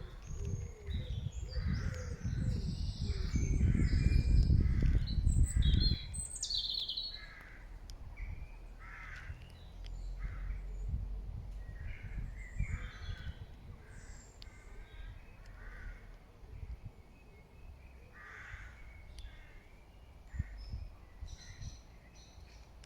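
Birds calling outdoors: many short, harsh calls repeated throughout, with higher chirps among them in the first several seconds. A loud low rumble fills the first six seconds, then falls away to a faint low hum.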